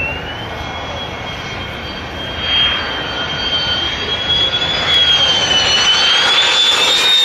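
F-16 fighter jet flying in low, its turbofan engine giving a steady high whine over a rushing noise that grows louder as it nears.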